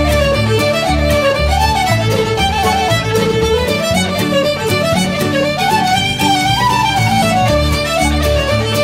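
Background music: a fiddle melody over bass notes and a steady beat.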